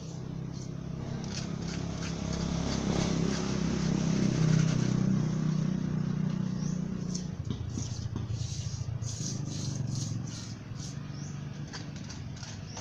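A motor vehicle's engine passing by, its hum building to a peak about halfway through and fading after about seven seconds. Light scrapes and ticks of a steel trowel working wet cement run over it, thickest near the end.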